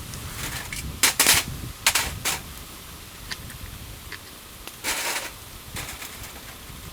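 Wood campfire crackling, with sharp pops and cracks in clusters about one second in, around two seconds in and again near five seconds in, and small ticks between.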